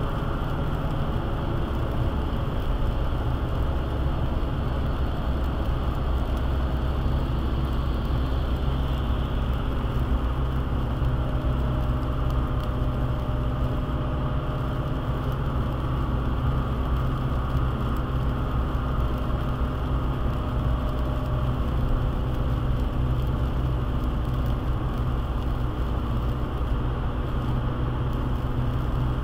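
Steady road noise heard inside a car at highway speed on a wet road: a low drone from the engine and tyres with a hiss from the wet pavement.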